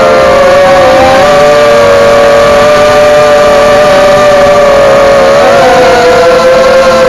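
Eachine Falcon 250 quadcopter's brushless motors and propellers whining loudly in flight, several close pitches held steady with small wavers as the throttle shifts.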